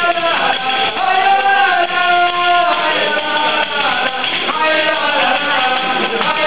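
Group of voices singing a Galician folk song together in long held notes, over the steady shaking of tambourine-like hand drums (pandeiretas).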